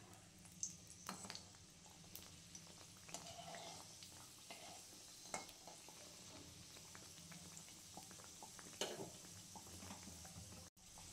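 Aloo puri deep-frying in hot oil in a kadhai, giving a faint, steady sizzle with scattered small clicks and pops.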